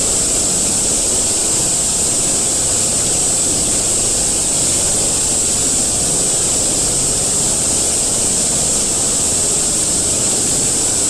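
Steady, loud static-like hiss of noise with a bright high edge, unchanging throughout.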